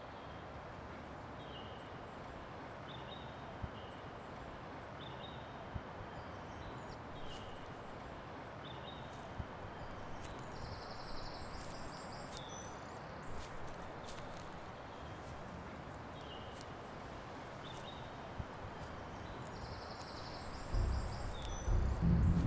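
Forest ambience: a steady soft hiss, with a bird repeating a short high call about every second and a half and now and then a brief higher song. A loud low rumble swells in near the end.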